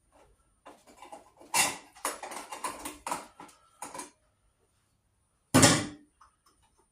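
Handling noise from hand work on an electrical junction box: a quick run of small clicks and knocks, then one louder thump about a second before the end.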